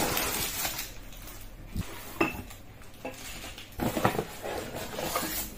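Unboxing a pneumatic rivet gun: crinkling plastic bags and cardboard, with several clinks and knocks as the bagged gun and its metal parts are set down on a glass tabletop.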